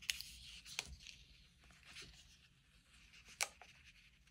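Faint rustling and crinkling of paper sticker sheets being handled, mostly in the first two seconds, with a few light taps or clicks, one about a second in and one past three seconds.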